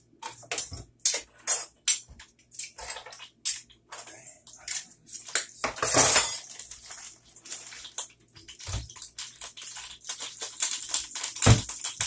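Pots, pans, lids and utensils clattering and clinking as they are handled on a stovetop and counter: many short knocks and clinks, a longer rattling clatter about six seconds in, and a heavier knock near the end.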